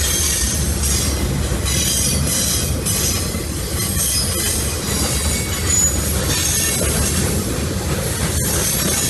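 CSX manifest freight train passing, its cars rolling by in a steady loud rumble of steel wheels on rail. A brief high-pitched wheel squeal comes partway through.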